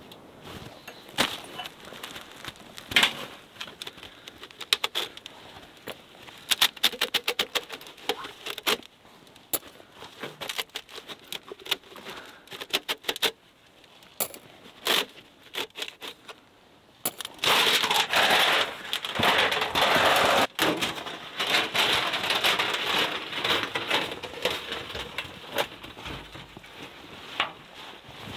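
A coiled metal spiral stovepipe being unrolled and handled with gloved hands: quick metallic clicks and rattles, thickest for a few seconds early on. Then a longer stretch of dense, continuous scraping and rustling.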